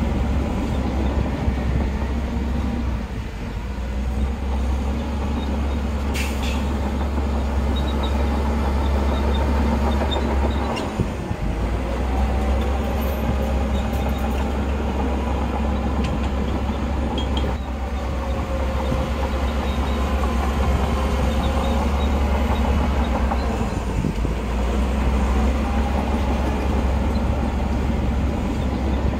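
Heavy diesel earthmoving machinery running steadily under load, a deep engine drone with a wavering whine above it; the drone drops out briefly about eleven seconds in.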